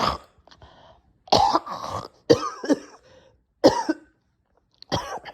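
A sick person coughing and clearing their throat in repeated short fits, about a second apart.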